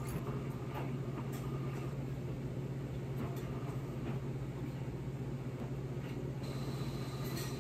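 Washing machines and dryers running with a steady low hum and rumble. A few faint soft taps and rustles come over it, and a faint high whine joins near the end.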